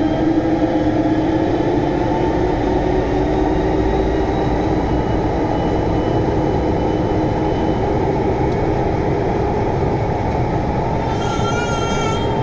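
VAL 208 rubber-tyred automatic metro train running through a tunnel: a steady rumble with a low motor hum, and a brief higher wavering tone near the end.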